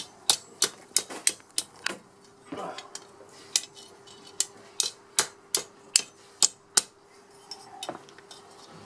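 Hand hammer striking a steel rod on a steel block used as an anvil, forging a bodkin arrowhead: a quick run of sharp ringing metal blows, about three a second, with a brief pause near the end. A faint steady hum runs underneath.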